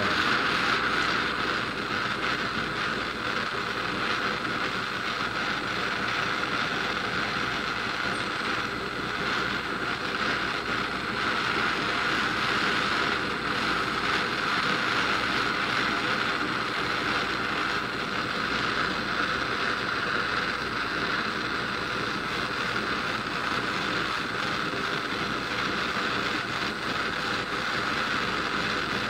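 Handheld gas torch burning with a steady hiss as its flame is held on silver in a plaster of Paris mold to melt it.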